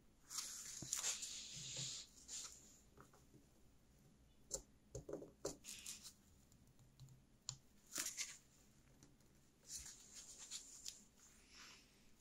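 Faint handling noises from gloved hands working a rusty metal tube and its bent metal strap from an old blowtorch: a scraping rustle lasting over a second, then scattered light clicks and scrapes.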